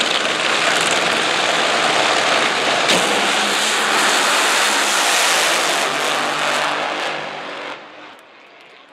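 Two nitromethane-burning Funny Car engines at full throttle during a drag-strip pass, a dense, crackling noise with a sharp crack about three seconds in. The sound drops away sharply about eight seconds in as the run ends.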